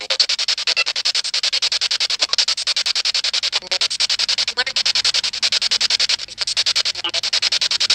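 Spirit box sweeping through radio frequencies: hissing static chopped about ten times a second, with brief snatches of broadcast voice, one around four seconds in.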